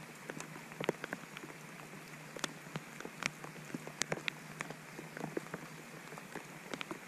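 Steady rain falling on a lake, with many separate drops ticking sharply and irregularly close by.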